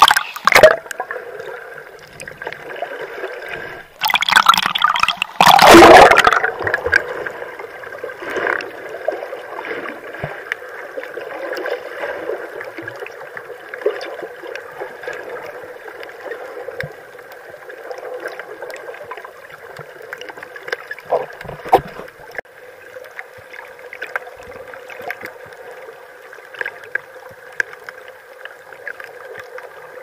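Snorkeling water sounds: gurgling and bubbling water, with loud rushing splashes near the start and again about four to six seconds in, then steadier, quieter bubbling with scattered small clicks.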